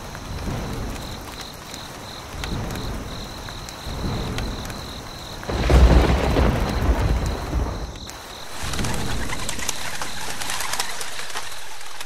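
Rain with rumbles of thunder, the loudest rumble about six seconds in. About eight seconds in the sound changes to a steadier hiss with birds calling.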